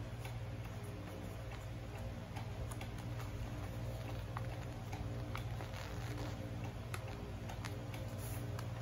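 Faint, irregular light ticks and taps of hands pressing and creasing a sheet of paper on a cloth-covered table, over a steady low hum.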